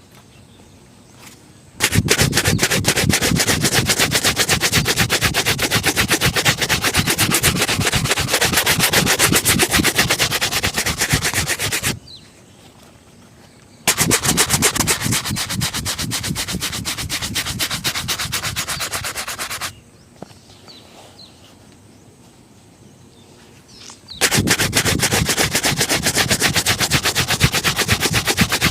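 A shoe being buffed in rapid back-and-forth strokes, in three long bouts with short pauses between them, near the start and about halfway through.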